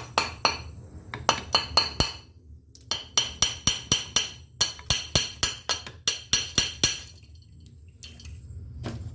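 Repeated sharp metallic taps on engine metal, about three to four a second, each ringing briefly. There is a burst near the start, then a longer run after a short pause, and the tapping stops about two seconds before the end.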